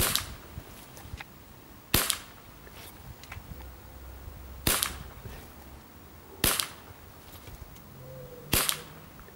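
Five shots from a 5.5 mm Weihrauch HW40 (Beeman P3) air pistol, each a sharp crack that dies away quickly, fired one after another about two seconds apart while shooting a group.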